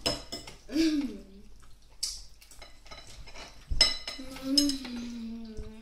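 A metal fork clinking and scraping on a plate. There is a sharp clink at the start and a louder, ringing one a little under four seconds in. A toddler's voice makes short sounds in between, ending in a held hum.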